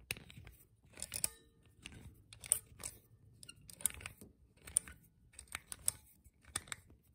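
Needle-nose pliers working the metal door cup of a magnetic doorstop, their tips twisting in the cup's two holes: a series of sharp metallic clicks and scrapes at uneven intervals.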